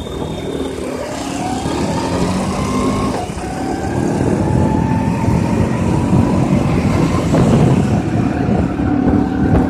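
Motorcycle engine running while riding, with road and wind noise on the microphone. The engine's pitch climbs, drops about three seconds in, then climbs slowly again as the bike picks up speed.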